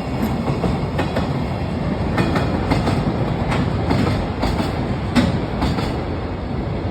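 A train rolling past close by: a steady rumble of wheels on rail with irregular clacks as the wheels cross rail joints, the sharpest about five seconds in.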